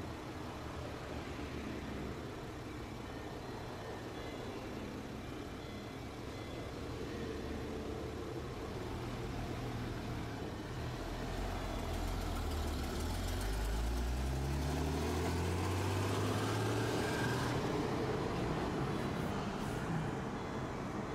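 Road traffic passing on a city street: car and tyre noise throughout, and in the second half a heavy vehicle's engine pulling away, its pitch climbing for several seconds as the sound gets louder.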